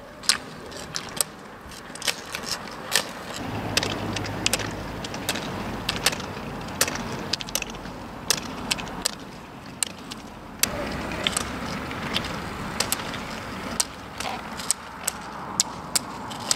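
Roller skis rolling on asphalt, with sharp clicks of ski-pole tips striking the pavement about twice a second.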